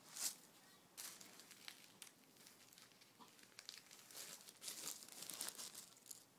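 Faint rustling and light clicks of a child handling play-kitchen toys, with a louder rustle just after the start.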